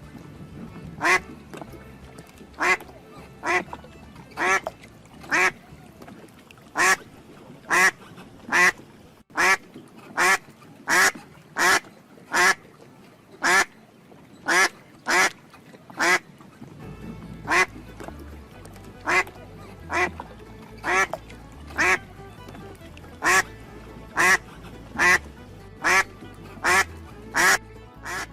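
A duck quacking over and over, short loud quacks about once a second, over quiet background music.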